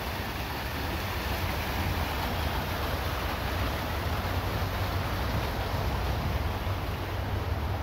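Steady noise of traffic on a nearby highway, an even wash with a deep low rumble.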